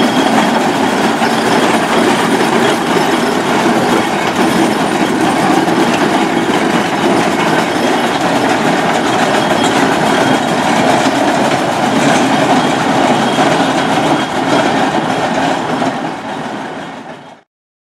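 Steam road roller running along a tarmac road with its iron rolls and water cart in tow, a steady mechanical rumble that fades as it moves away and then cuts off suddenly near the end.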